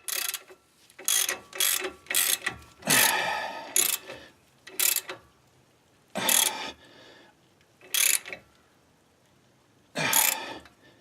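A torque wrench ratcheting in short strokes as the axle-retainer nuts on a classic Ford 8-inch rear axle are torqued to about 40 foot-pounds. There are about ten separate bursts of ratcheting at uneven intervals, the longest about three seconds in, with pauses between.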